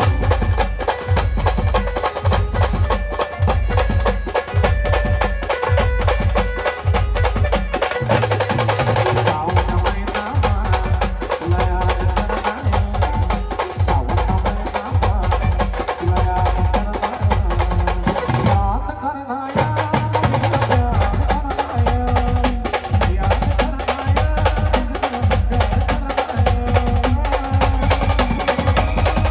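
Indian wedding-style brass band playing: a steady pounding bass-drum beat with clacking percussion under a held melody. The music cuts out for about a second roughly two-thirds of the way through, then comes straight back in.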